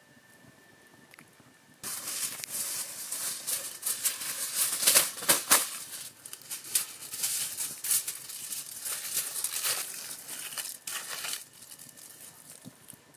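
Thin sheet material crumpled and crinkled by hand, a busy run of sharp crackles that starts suddenly about two seconds in and dies away near the end.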